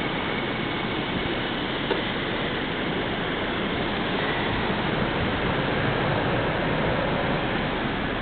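Steady rushing hiss of snowstorm wind, even and unbroken, with no engine note or rhythm in it.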